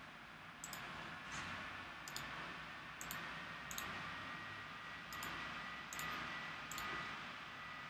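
Faint computer mouse clicks, about eight of them at irregular intervals, over quiet room tone with a faint steady high whine.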